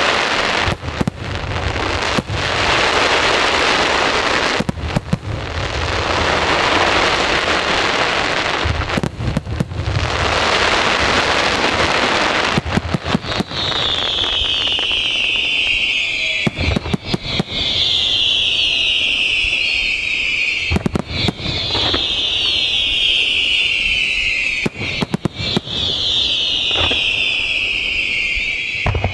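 Aerial fireworks display: dense crackling with repeated sharp booms for the first half, then about four long high whistles, each falling in pitch over roughly three seconds, with booms between them.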